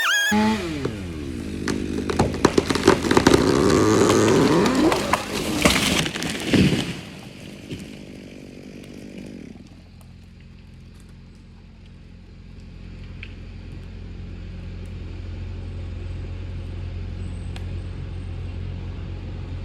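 A tree cracking and breaking as a bulldozer bumps it over, with a run of loud cracks for several seconds and a heavy crash about six and a half seconds in. Afterwards the bulldozer's engine runs steadily.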